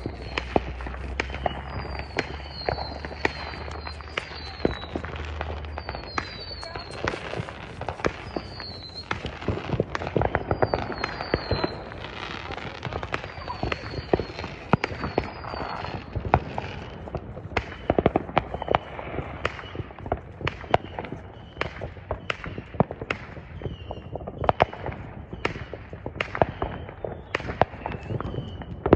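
Fireworks going off all around: a steady stream of sharp pops and bangs, some with crackle. Short, high, falling whistles repeat in small groups through the first half.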